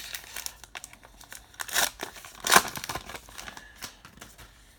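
2019 Topps Heritage baseball cards being handled and flipped through, the card stock rustling and sliding against itself, with a couple of louder swishes near the middle.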